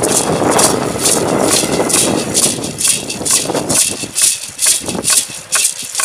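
Hand rattles shaken in a steady rhythm, about two strokes a second. A dense rushing noise lies under them in the first half and thins out from about halfway.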